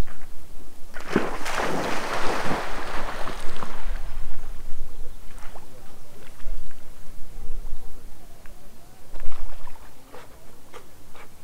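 Lake water splashing close to the microphone for a couple of seconds, starting about a second in, followed by small scattered splashes and clicks, over a steady low wind rumble.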